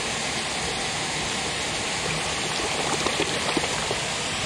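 Steady rush of shallow water flowing over concrete, with a few small splashes in the second half as a hand and a released snakehead stir the water.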